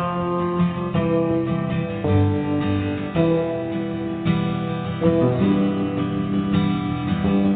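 Outro music: strummed acoustic guitar, its chords changing about once a second.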